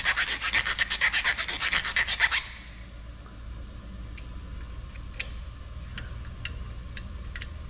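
A hand file rasping quickly back and forth at about eight strokes a second, filing out the burred mounting hole of a small metal axle tag so it will fit over the differential stud. The filing stops about two and a half seconds in, followed by a few light clicks.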